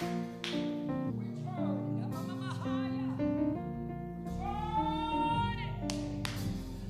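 Slow worship music with sustained chords. About midway through, a voice sings one long held note that rises slightly.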